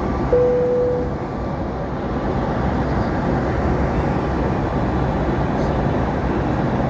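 Steady airliner cabin noise during the climb after takeoff: the even rush of the jet engines and airflow, with one brief steady tone about half a second in.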